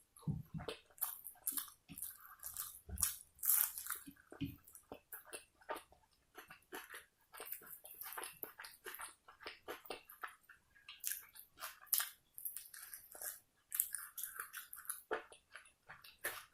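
Close-miked chewing and mouth sounds of a person eating: irregular clicks and smacks, several a second.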